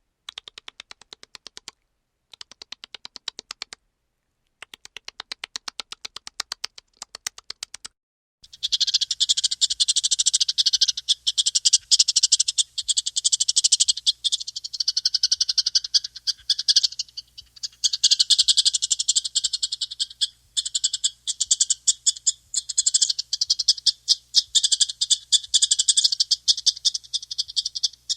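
Rapid trilling animal calls: short pulsed trills of about a second each with gaps between them, then from about eight seconds in a dense, high, continuous trilling chorus.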